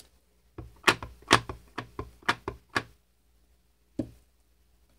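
Clear acrylic stamping block tapped quickly and repeatedly onto an ink pad, about nine sharp knocks at roughly four a second, then one more knock as the block is pressed down onto the card.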